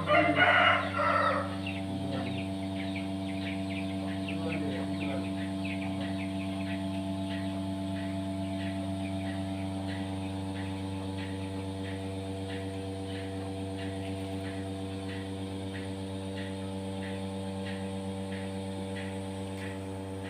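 A chicken crows loudly in the first second and a half over a steady electric hum that runs throughout. Faint short ticks or clucks recur about twice a second after the crow.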